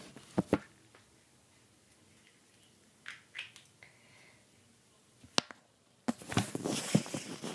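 Close handling noise of a taped plastic surprise egg being worked open: two sharp clicks near the start and another about five seconds in, then a run of rustling and clattering from about six seconds in.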